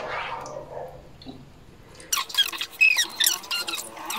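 A ladle scooping a creamy mango-and-gelatin mixture into a plastic tub: a knock at the start that fades over about a second, then from about two seconds in a quick run of squeaks and clicks of plastic and utensil.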